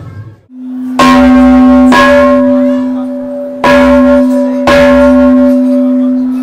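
Large hanging gong struck with a mallet four times, in two pairs of strikes about a second apart. Each strike rings on with a steady low hum and higher overtones that die away slowly.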